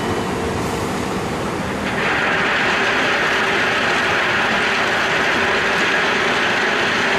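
Tipper truck's diesel engine running steadily as the hydraulic body lifts; from about two seconds in, a load of crushed stone slides off the tailgate with a continuous rushing rattle over the engine.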